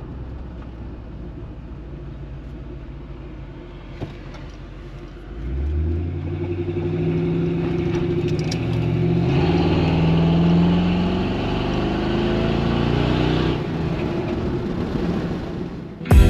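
6.0-litre LS V8 in a squarebody Chevy pickup, heard from inside the cab. It runs low and steady at first, then about five seconds in it accelerates hard, the engine note louder and climbing in pitch, before easing off a few seconds before the end.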